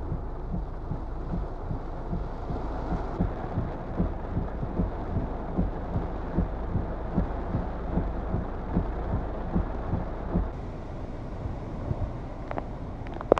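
Hurricane winds and heavy rain, the gusts buffeting the microphone in rapid, uneven low thumps. About ten seconds in the sound shifts to a steadier, lighter rush of wind and rain, with a sharp click near the end.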